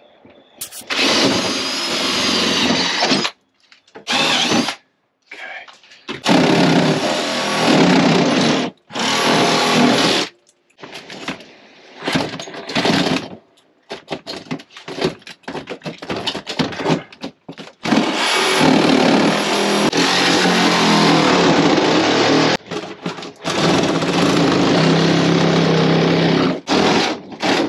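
Power tools running in repeated bursts of a few seconds each, starting and stopping abruptly with short silences between, and a steadier motor tone near the end.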